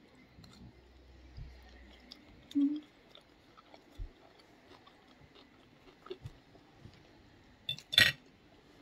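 A person chewing a mouthful of sushi roll: quiet mouth sounds with small clicks and a brief low sound about two and a half seconds in. A single sharp knock near the end is the loudest sound.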